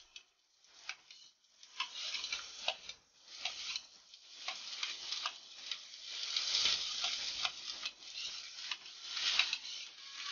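Diced potatoes sizzling as they drop into hot oil in a steel kadhai, the sizzle building from about two seconds in. Throughout there are sharp clicks and taps of a perforated steel ladle scraping potato off a steel plate.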